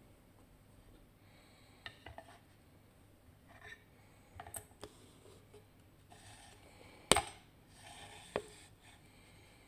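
Small metallic clicks, taps and rubbing of a lock and hand tools being handled, with a sharp click about seven seconds in and another knock about a second later.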